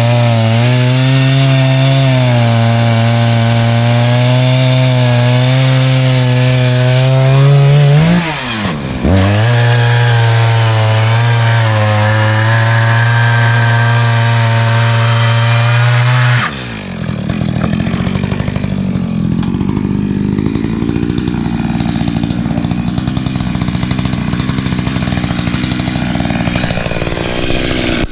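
Echo CS-590 Timberwolf two-stroke chainsaw with a ripping chain, running at full throttle in a chainsaw-mill cut through cedar. Its pitch dips and recovers about eight seconds in. About sixteen seconds in it suddenly drops to a lower, uneven running speed.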